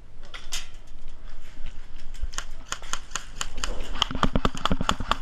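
Airsoft guns firing: scattered sharp shots at first, then a fast string of about eight shots a second over the last second or so, with a low motor hum under it, stopping suddenly at the end.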